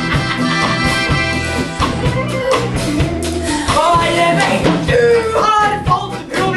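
A song with instruments and a steady beat. From about halfway through, a woman sings a melody over it.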